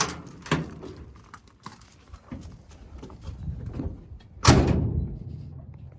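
A few light knocks, then a vehicle door shutting with one heavy thud about four and a half seconds in. No engine is running.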